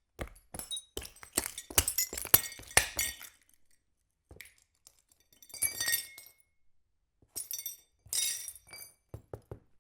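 Glass shards being crunched and ground, with sharp crackling clinks: a dense run over the first three seconds, then a few separate crunches and some low knocks near the end.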